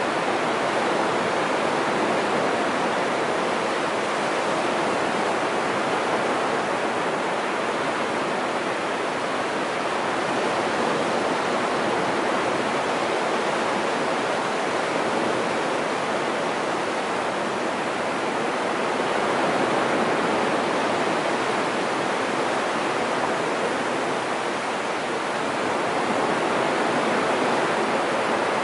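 Low surf breaking and washing up a flat sandy beach: a steady rush of waves that swells slightly now and then.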